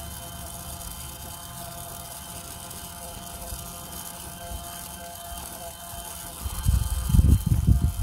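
Battery-powered toy iron's small motor buzzing steadily as it is pushed over cloth. About six and a half seconds in, loud irregular low thumps of handling take over.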